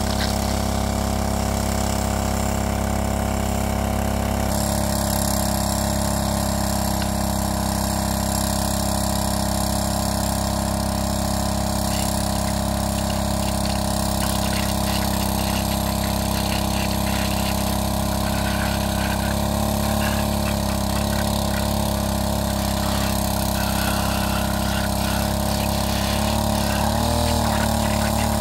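Small engine-driven water pump running steadily at constant speed, pumping water out of the pond through its suction hose.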